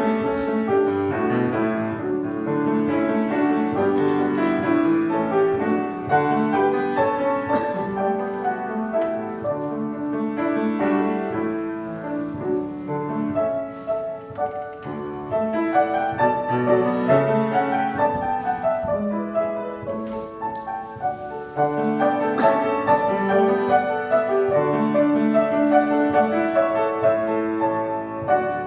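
Piano music: a flowing keyboard passage of many quick notes that plays on steadily.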